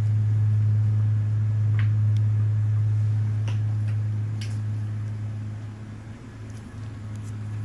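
A steady low electrical hum, dropping in level about six seconds in, with a few faint small clicks.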